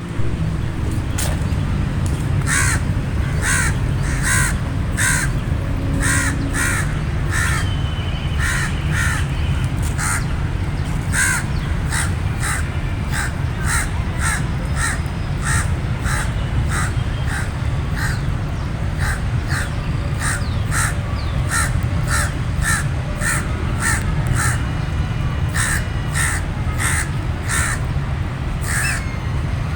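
Crows cawing over and over, short harsh caws coming about one or two a second with brief pauses, over a steady low rumble.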